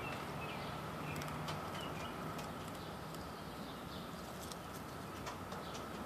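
Distant chorus of Brood II periodical cicadas: a steady droning hum, with scattered faint clicks over it.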